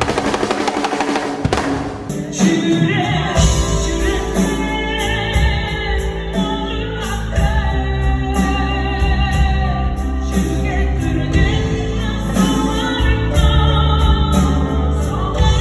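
Live band music with throat singing: a low drone and bass under held, wavering vocal tones. It opens with a loud wash of noise for about the first second and a half.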